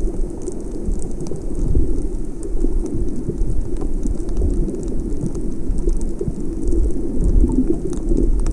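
Underwater ambience picked up by a submerged camera: a steady, muffled rumble of moving water, with faint scattered crackling over it.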